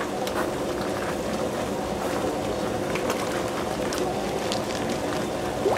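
Koi pond water: a steady watery hiss with scattered small splashes and clicks as the fish crowd and churn at the surface.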